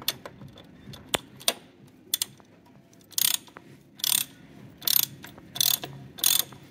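Ratchet wrench with a 27 mm socket tightening a fitting down snug. A few single clicks at first, then from about three seconds in a steady run of short ratcheting bursts, about one every 0.7 s, as the handle is swung back and forth.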